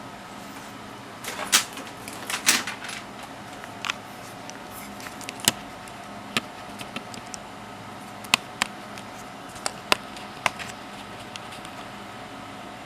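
Handling clicks and knocks on a bench: a cluster of knocks and rattles in the first few seconds, then single sharp clicks about once a second, over a steady faint hum.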